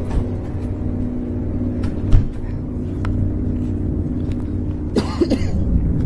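A steady low drone made of several held tones, the unexplained hum that the listeners liken to construction on a highway. A single sharp knock about two seconds in, and a short cough near the end.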